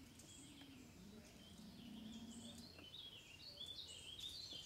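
Faint woodland ambience: birds chirping in many short, scattered calls against a quiet background.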